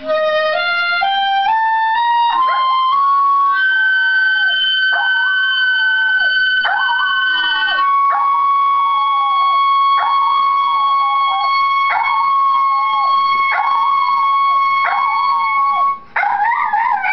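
Clarinet playing a quick rising scale into its high register, then holding long, high siren-like notes, while an American Eskimo dog howls along in a string of short, wavering howls about one a second. Near the end the clarinet stops and the dog howls on briefly.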